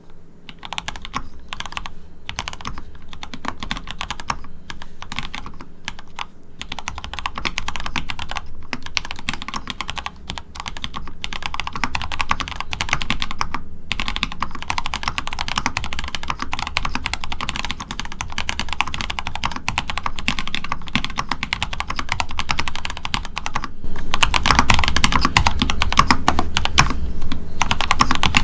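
Typing on a mechanical keyboard with lubed Gateron Yellow linear switches, recorded with a Shure SM57 microphone. Rapid continuous keystrokes; the typing gets denser and louder about 24 seconds in.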